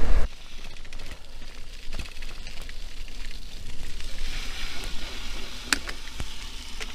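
Bicycle tyres rolling over a dirt and gravel track, a steady crackling crunch with a few sharp clicks as the bike jolts over bumps.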